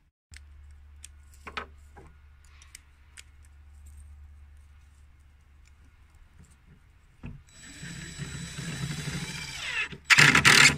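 Cordless drill boring into plywood: the motor runs for about two and a half seconds with a shifting whine, then a short, much louder harsh burst just before the end.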